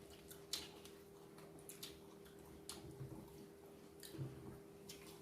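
Faint, scattered crisp clicks of people chewing and handling crunchy fried food, over a steady low hum.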